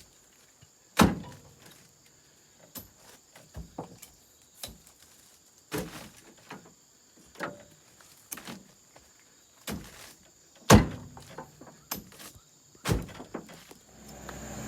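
Irregular heavy thuds and knocks of oil palm fruit bunches being thrown and stacked in a truck's cargo bed, about a dozen in all, the loudest about a second in and again near the eleventh second.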